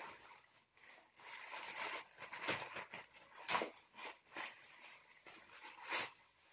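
Plastic shopping bag crinkling and rustling as hands rummage in it, with sharper crackles coming and going irregularly.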